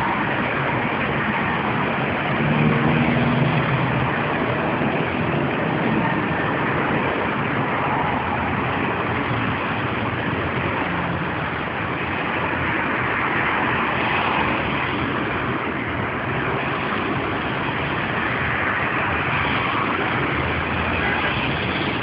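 Steady road traffic noise: cars and their engines and tyres going by on a city street, with a brief swell in low engine sound about three seconds in.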